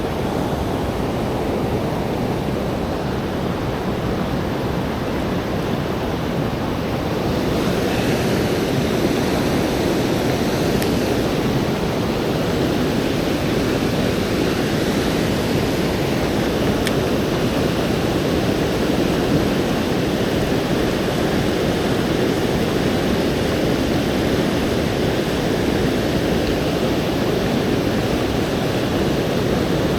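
Steady rush of fast-running river water, running high and swollen; it grows slightly louder about eight seconds in.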